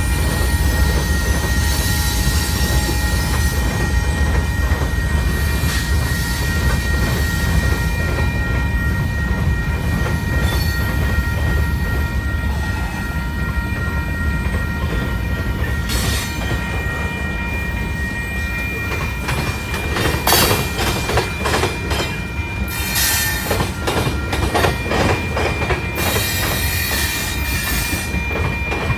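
Freight train cars rolling by: a steady low rumble with a high, steady wheel squeal over it. From about two-thirds of the way in, a rapid clatter of wheels over rail joints joins it.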